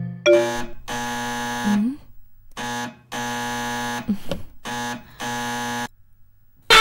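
Electric doorbell buzzing in six repeated presses, each a steady buzz of half a second to nearly a second. Near the end a sudden loud burst with a pitch falling away as the overworked bell shorts out and the power goes.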